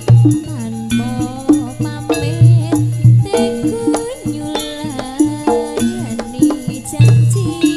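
Javanese jaranan gamelan ensemble playing live: repeated drum strokes and struck bronze pitches under a wavering melody line.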